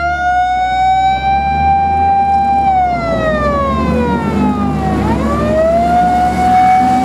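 Fire engine siren wailing on the Red Salamander all-terrain fire vehicle: the tone holds high, falls away over about two seconds, climbs again about five seconds in and holds high. A low engine rumble runs underneath.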